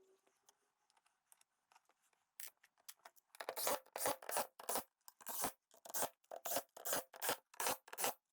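Quiet at first, then from about three seconds in a rapid series of short scratchy, rasping noises, about two or three a second.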